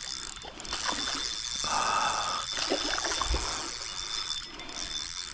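Creek water trickling and splashing, with scattered small clicks and a short buzz about two seconds in.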